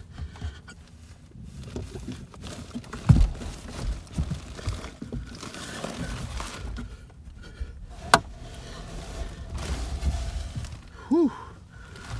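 Knocks, thumps and scraping from a person crawling and shifting about in a tight attic space among wooden roof trusses, with a heavy thump about three seconds in and a sharp click about eight seconds in. A short vocal grunt comes near the end.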